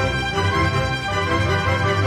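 Instrumental background music with held, sustained notes over a pulsing low end; no firework bangs are heard.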